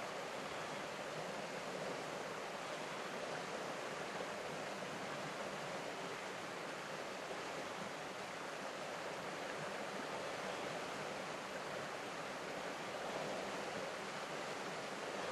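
Steady, even rushing noise with no distinct sounds standing out of it.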